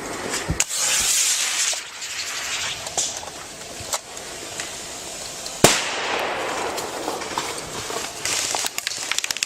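Sharp firecracker-like bangs, the loudest a little over halfway through and a smaller one about half a second in, each followed by a hiss, then a quick run of small pops near the end.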